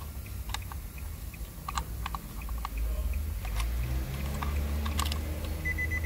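Small plastic clicks and knocks as an Infiniti intelligent-key fob is handled in and around its loose key slot unit, over a steady low hum. Near the end a high electronic beep starts.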